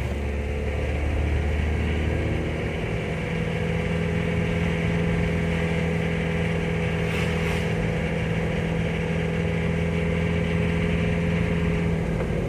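Mitsubishi L300 pickup's diesel engine running steadily while driving, heard from inside the cab as a steady drone. Its note lifts slightly about two seconds in.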